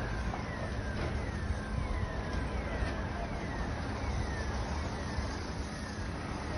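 A car alarm sounding a short falling whoop over and over, about every two-thirds of a second, over a steady low rumble.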